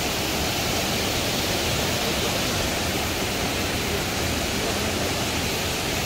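Steady, unbroken rush of Barkana Falls, a tall waterfall, heard from above.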